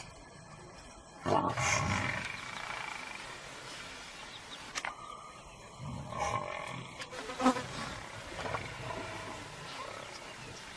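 Lions growling and snarling in two loud outbursts, one shortly after the start and another past the middle, over a steady background hum.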